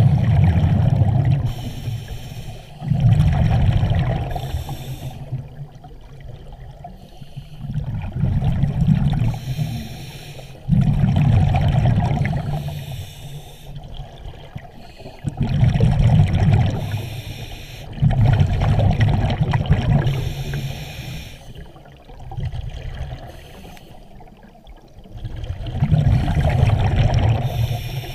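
Scuba diver breathing through a regulator underwater: rushes of air and bubbling exhaust come in repeated breaths a few seconds apart.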